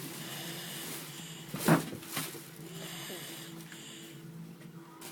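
A sleeping person snoring, in breathy stretches over a steady low drone. A single sharp thump about one and a half seconds in is the loudest sound.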